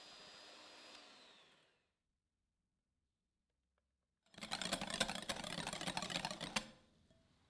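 Cuisinart electric hand mixer beating egg whites into stiff meringue, its motor whining steadily, then winding down with a falling pitch and stopping about a second and a half in. After a pause of about two seconds comes a louder burst of clicking and scraping that lasts about two seconds.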